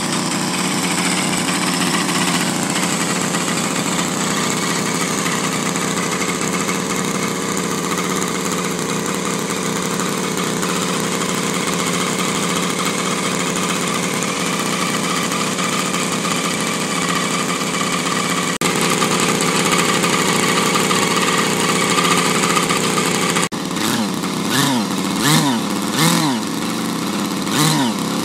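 O.S. 160 twin-cylinder engine of a radio-controlled model helicopter running steadily. In the last few seconds it is revved up and down in about half a dozen quick throttle blips.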